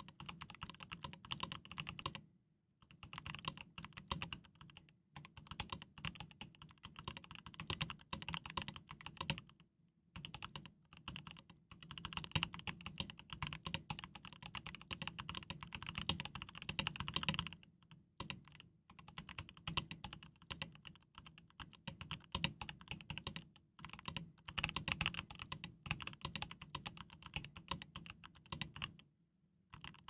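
Custom mechanical keyboard, a Rama Works Koyu case with stock Boba U4T tactile switches and GMK Laser keycaps, being typed on in fast, dense runs of keystrokes. Brief pauses come every few seconds.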